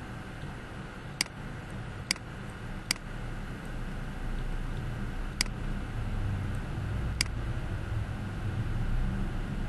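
Five short, sharp computer-mouse clicks, irregularly spaced, over a steady low background rumble.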